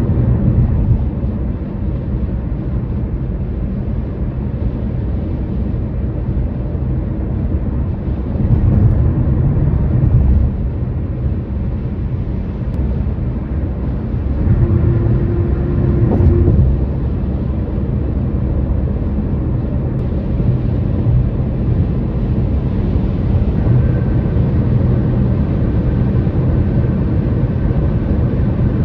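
Road noise of a car driving at speed: a steady low rumble of tyres on the pavement that swells a couple of times, with a brief steady hum about halfway through.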